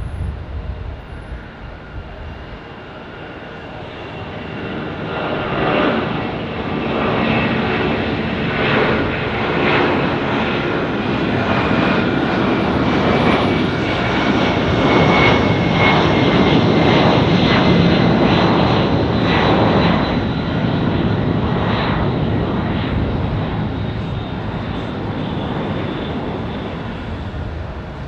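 Boeing 757 jet engines at takeoff power as the freighter climbs out after liftoff. The noise swells to a loud, crackling rumble with a falling whine around its loudest point, then fades as the aircraft moves away.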